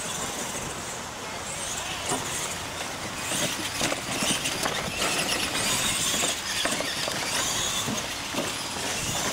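Electric radio-controlled monster trucks running flat out across a dirt track: motors and gears whining and tyres scrabbling on the dirt, with short knocks as they bounce over the ramps.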